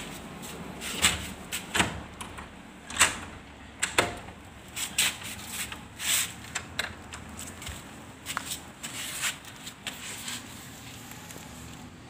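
Irregular clicks, light knocks and rustling from handling, with a louder knock about three seconds in.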